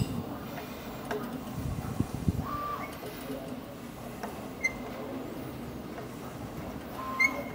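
Small machine screws being driven into a Kaleido coffee roaster's drum with a hex (Allen) key, run in snug but not yet tightened down. There are a few light metallic clicks in the first couple of seconds, then short squeaks of metal on metal a third of the way in, midway and near the end.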